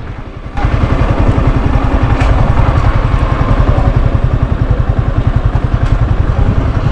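Yamaha R15's single-cylinder engine running as the motorcycle rides slowly along, a fast steady pulsing that comes up loud about half a second in.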